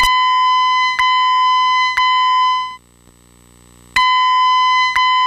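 Fire alarm voice evacuation speaker sounding a steady, loud alarm tone in groups of three, each tone starting with a click. The sets of three repeat about every four seconds, the temporal-three evacuation pattern.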